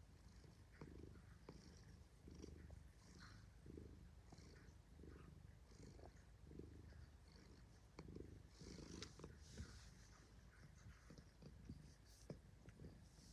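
Domestic tabby cat purring quietly and steadily while being petted, the purr swelling and easing in a slow rhythm with each breath, a little under once a second.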